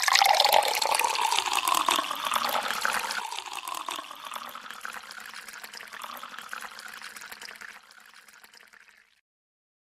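Water pouring in a steady stream into a glass, the splashing tone rising in pitch over the first couple of seconds as the glass fills. The pour then fades gradually and stops near the end.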